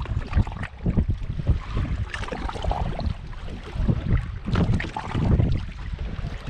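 Wind buffeting the microphone in uneven gusts over choppy lake water against a bass boat's hull.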